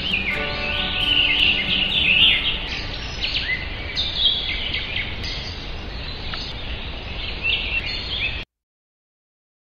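Several birds chirping and singing at once, a busy chorus of short high calls, with faint music under it in the first couple of seconds. The sound cuts out completely near the end.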